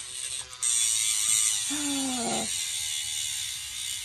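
Handheld electric dog nail grinder whirring steadily against a dog's claw, with a short break about half a second in.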